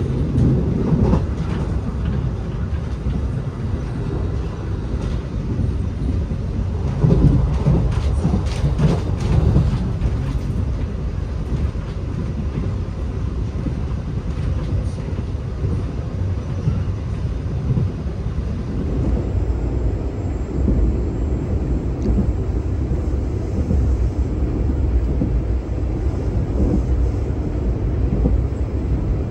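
Passenger train running along the line, heard from on board: a steady low rumble of wheels on rails, with a short run of clicks about seven to ten seconds in.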